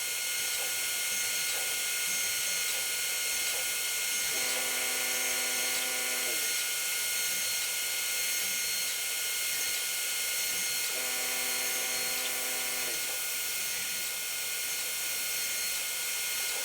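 CNC router machining wood: the spindle runs with a steady high whine, and twice a lower motor hum joins it for about two seconds and falls in pitch as it stops, as the machine's axes move.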